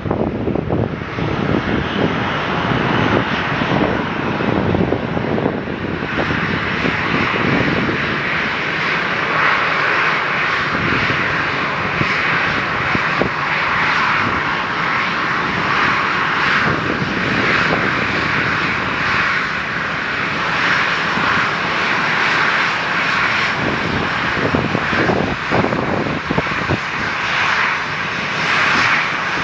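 Jet engines of a Boeing 737-800 airliner running, a steady roar that grows louder and brighter about six seconds in.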